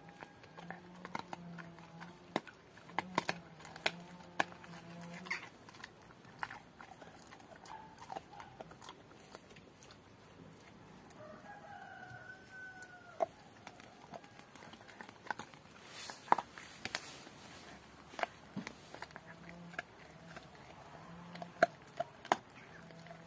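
Rottweiler gnawing a raw pork bone: irregular sharp cracks and clicks of teeth on bone, the loudest about two-thirds of the way through. A bird calls once in the background about halfway through.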